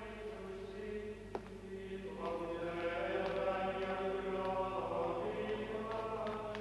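Voices singing a slow liturgical chant in long held notes, with more voices joining about two seconds in. A single light knock sounds about a second and a half in.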